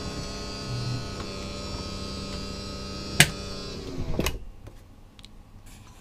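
A motorhome's bedroom slide-out motor humming steadily as it drives the slide room out. A sharp click comes about three seconds in. Near four seconds the motor winds down in pitch and stops with a clunk as the slide reaches the end of its travel.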